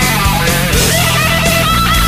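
Loud rock or metal music with electric guitar and a steady beat.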